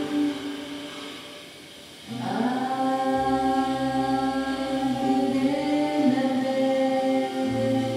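Kundalini yoga mantra chanting: sung voices in long held notes over a steady accompaniment. One phrase fades out in the first two seconds, and a new one swells in just after two seconds, with a low bass entering soon after.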